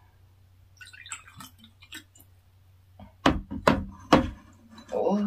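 Soju poured from a green glass Jinro bottle into a shot glass, with faint trickling, then three sharp glass knocks on the table about three to four seconds in as the bottle and glass are handled.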